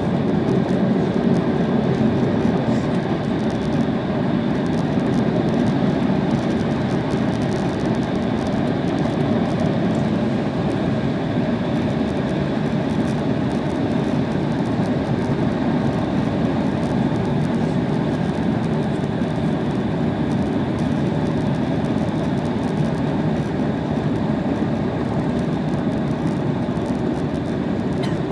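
Steady cabin noise inside an Embraer E190 taxiing: its twin GE CF34 turbofans running at taxi power, together with the rolling rumble of the airliner moving along the taxiway, and a faint steady high whine on top.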